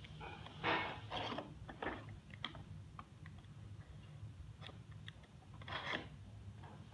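Folding knife cutting and scraping through the packing tape and cardboard of a toy box, in several short, irregular scrapes.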